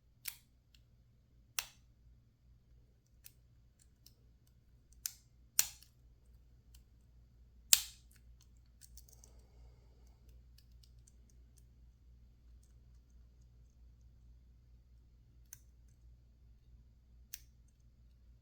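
Scattered sharp metal clicks of a lock pick and tension wrench working in a PacLock 410 Pro padlock, most of them in the first eight seconds, the loudest about eight seconds in, then two fainter ones near the end, over a faint low hum.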